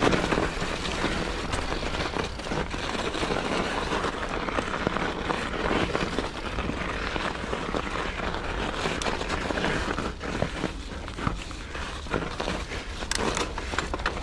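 Mountain bike riding on singletrack: steady tyre noise over a trail of thin snow and mud, with frequent short clicks and rattles from the bike.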